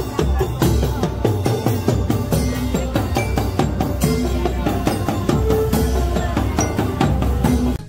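Marching drum band playing: fast, dense snare and tenor drum strokes over bass drums, with hand cymbals clashing and a few held notes above the drumming.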